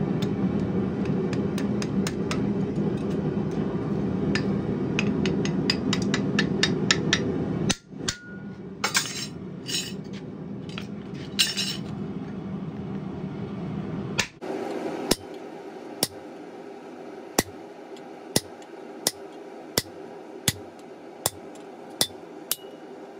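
Hand hammer striking red-hot mild steel bar on an anvil. First a run of quick blows over a steady rushing noise. After a break, separate blows come about every 0.7 s, with a faint metallic ring after some of them.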